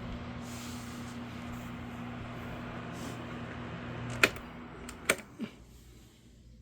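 Two Honeywell HT-900 table fans running with a steady motor hum and rush of air. About four seconds in a switch clicks, a second click follows a second later, and the hum and air noise die away as the blades spin down.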